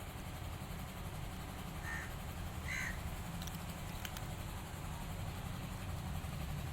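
A small kitten gives two short, high mews about two and three seconds in, over a steady low rumble, with a couple of faint clicks after them.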